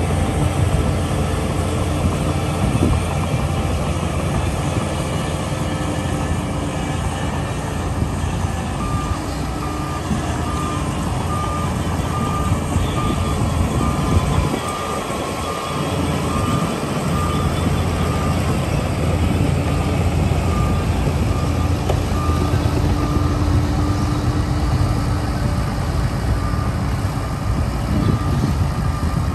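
Heavy diesel machinery running with a steady low rumble as a dump truck tips its load. Partway in, a reversing alarm starts beeping evenly at a little under two beeps a second and keeps going nearly to the end, with one short break.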